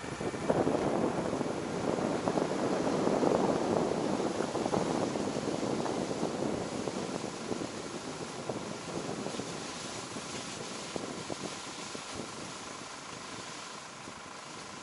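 Vehicle on the move, heard from a camera mounted on it: road and wind noise with a faint steady whine. It swells about half a second in, stays loud for several seconds, then gradually eases off.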